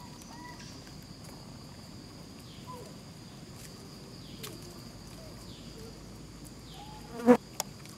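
Steady high-pitched drone of insects, with a few faint short chirps. About seven seconds in comes one brief, loud, pitched call.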